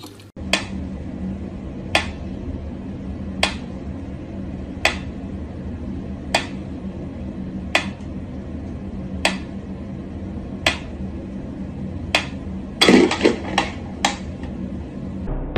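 Mechanical pyramid metronome ticking slowly and evenly, about one tick every second and a half. About 13 seconds in, a brief clatter of several louder knocks breaks in before the ticking carries on.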